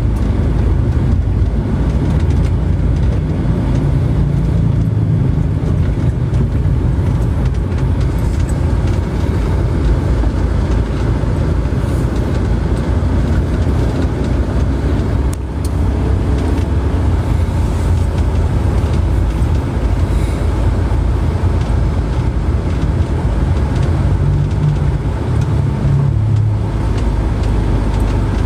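Steady low rumble of a moving vehicle, like road noise heard from inside, with a brief dip about fifteen seconds in.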